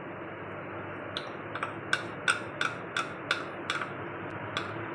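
A small bowl of gram flour (besan) tapped repeatedly against the rim of a plastic bowl to knock the flour out: about ten light ticks, roughly three a second, starting about a second in, over a steady faint hiss.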